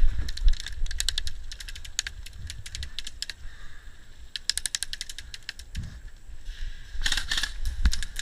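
Airsoft guns firing in several short bursts of rapid clicking shots, one burst after another.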